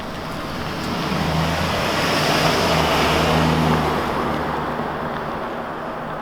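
A road vehicle driving past, its engine and tyre noise swelling to a peak about three seconds in and then fading away.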